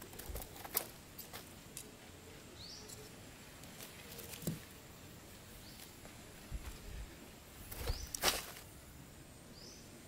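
Scattered rustles, scrapes and a few sharp clicks from hands working a snare string and sandy soil around a half-buried football, loudest about a second in and again near the end. A few short high bird chirps sound in the background.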